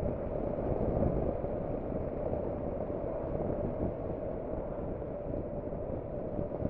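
Steady, muffled rush of wind and road noise from a Honda NC750X DCT motorcycle riding along at speed, dulled by noise reduction applied to the wind noise.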